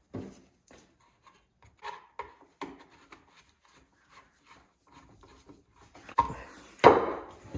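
Hand-fitting of plastic and metal parts on a cutoff saw's carburetor housing: scattered light clicks and knocks as a part is worked into its latch, then a louder scraping rub about six seconds in.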